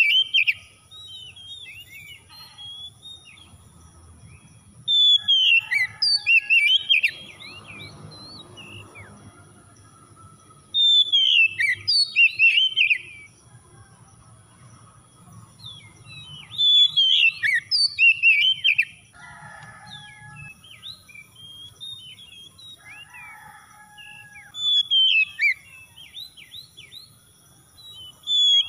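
Oriental magpie-robin singing: a burst of rapid whistled notes and trills about every five to six seconds, each burst lasting about two seconds.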